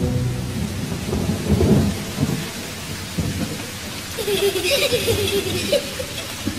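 Recorded rain with low rumbling thunder, laid into a song's break between sung lines. A short wavering pitched sound rides over it for about two seconds, starting about four seconds in.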